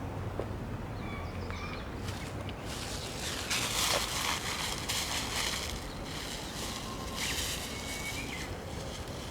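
Outdoor riverbank ambience: a steady low wind rumble with a few bursts of rustling hiss, and two faint thin bird calls, about a second in and near the end.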